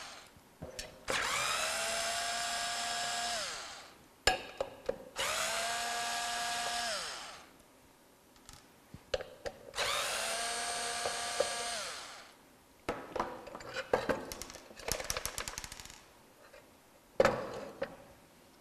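Cordless electric screwdriver backing screws out of an aluminium strobe power-supply housing: three runs of a few seconds each, the motor whine climbing to a steady pitch and winding down. Between the runs come small clicks and rattles of loose screws and handling, and a sharp knock near the end.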